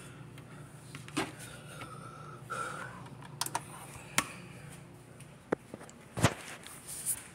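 Scattered clicks and knocks over a low steady hum, the loudest about six seconds in: the buttons of a four-slot stainless steel toaster being pressed and the phone being handled.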